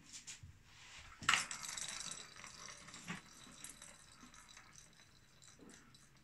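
A plastic ball rolling around the track of a circular cat toy: a sharp knock about a second in, then a rattling roll that fades over the next few seconds, with a few lighter clicks after.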